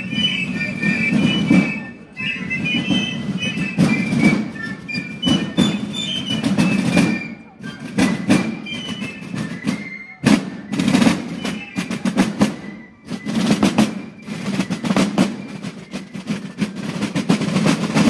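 Basel drummers playing side drums in a steady, even rhythm of dense strokes.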